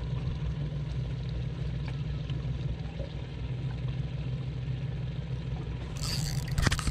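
Small tiller-steered outboard motor running steadily at low trolling speed, a steady low hum. Near the end a short burst of rasping hiss rises over it.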